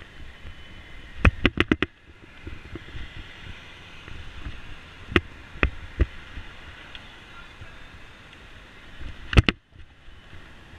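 Bicycle and its mounted camera knocking and rattling as it rolls over bumps in the street: a quick run of about five sharp knocks a second in, three single ones around the middle, and a loud double knock near the end, over steady street noise.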